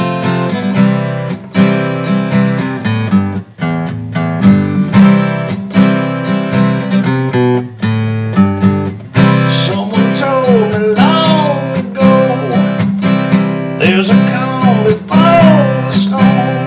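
Acoustic guitar strummed in a steady rhythm through a chord progression. From about ten seconds in, a melody that bends up and down in pitch plays over the chords.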